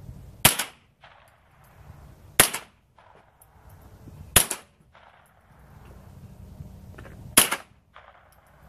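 Four single shots from a Remington 597 .22 LR semi-automatic rifle, sharp cracks spaced about two seconds apart with a longer gap of about three seconds before the last.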